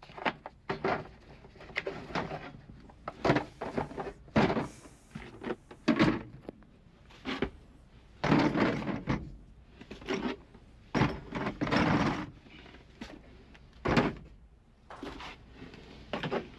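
Hard plastic tool cases being set down and shoved onto a metal shelf tray, an irregular run of thunks, knocks and clatter.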